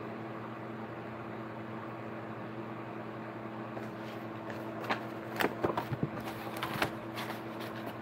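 Steady low room hum, with a few short clicks and rustles about five to seven seconds in as a folder is handled.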